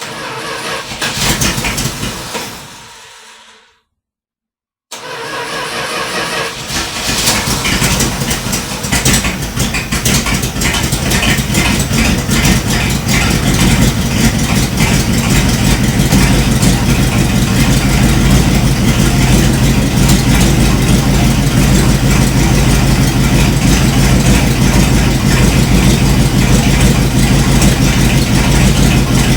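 1978 Dodge Power Wagon's engine starting and settling into a steady idle. A few seconds of engine sound break off about four seconds in; the engine then picks up again, builds for several seconds and runs on steadily.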